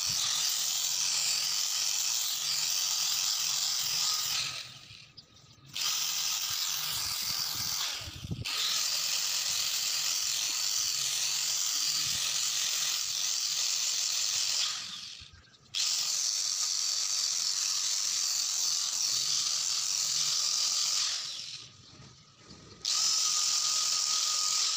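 Electric angle grinder with a sanding disc running at full speed against the top of a wooden tree-trunk slice: a steady, high whine. Three times the sound dies away over about a second and then starts again abruptly.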